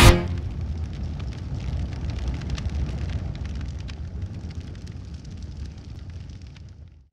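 A low rumbling sound effect with faint crackles, fading steadily to silence near the end.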